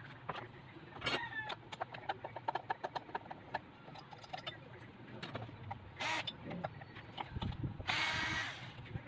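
Cordless drill-driver running in two short bursts while driving a screw, a brief one about six seconds in and a louder one of under a second near the end. Before that, a run of small clicks and knocks from a screwdriver and handling of parts.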